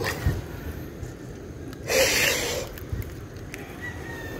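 A person's loud breath out through the nose, a short snort lasting under a second about two seconds in, over a quiet steady outdoor background.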